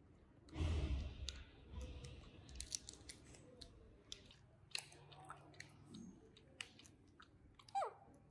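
Small plastic sachet crinkling and rustling as it is squeezed and worked between the fingers, with scattered sharp clicks of the plastic. A louder rustle comes about half a second in, and a short falling squeak near the end.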